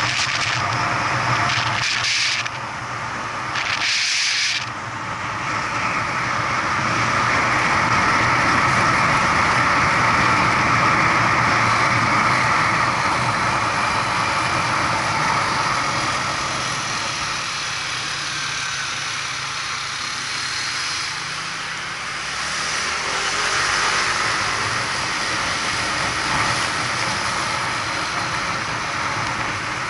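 Steady road and wind noise of a moving vehicle, heard on board with its engine running. About twenty seconds in, a low engine note climbs in pitch as the vehicle speeds up.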